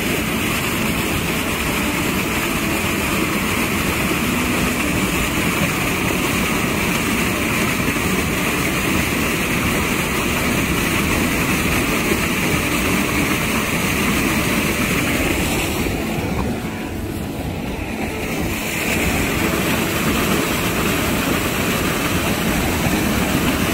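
Seawater splashing and churning steadily as a school of fish thrashes at the surface around a cast net being hauled in, easing briefly about two-thirds of the way through.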